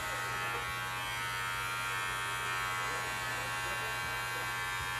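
Electric hair clippers buzzing steadily as they are run over a man's close-cropped scalp, cutting the short hair.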